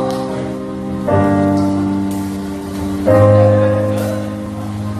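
Stage keyboard playing sustained piano-sound chords as a song's intro: a new chord is struck about every two seconds and each rings on, slowly fading.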